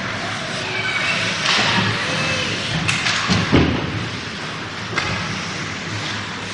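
Ice hockey game in a rink: a few sharp thuds against the steady arena background, the loudest about three and a half seconds in, from the puck and players hitting the boards.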